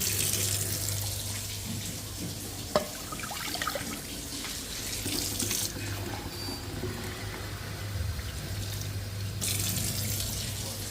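Water running from a tap into a sink in several spells, with small clatters and one sharp knock about three seconds in, over a steady low hum.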